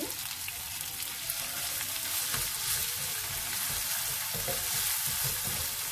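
Chili paste with ginger, garlic and lemongrass sizzling steadily in hot oil in a non-stick frying pan as it is fried until golden, stirred with a wooden spatula.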